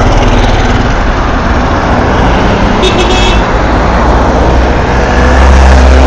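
Road traffic passing close at speed, engines running over tyre noise, with a brief high-pitched horn toot about three seconds in. A louder low engine rumble comes in from about five seconds.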